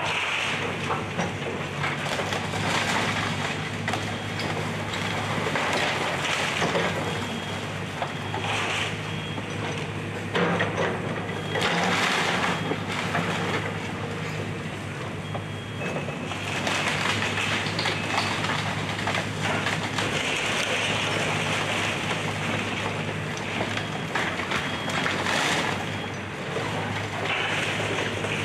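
Excavator's diesel engine running steadily under repeated crunching and cracking of a house being torn down, with a few brief high squeaks.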